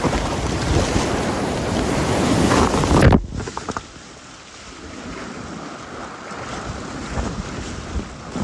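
Swollen river water rushing, with wind noise on the microphone, loud for about three seconds. It then cuts off abruptly to quieter flowing water with a few small splashes.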